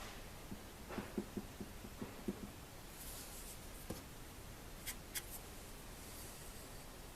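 Marbles running through a marble run: a quick series of about eight short hollow knocks in the first few seconds, then a single knock and a few sharp clicks.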